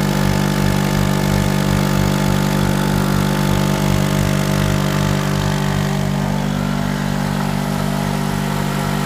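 Small 650–850 watt two-stroke petrol generator running steadily under the load of a 600-watt oil-filled heater, purring evenly with no knock from the big end or piston: a sign that the engine is mechanically sound.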